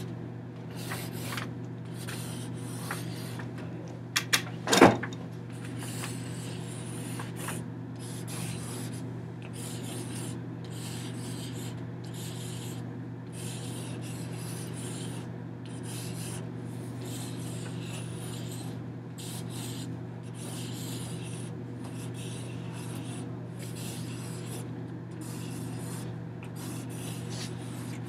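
Repeated rubbing and brushing strokes of hands handling a fabric-wrapped lattice wall hanging against paper, over a steady low hum. A brief cluster of sharp knocks about four to five seconds in is the loudest sound.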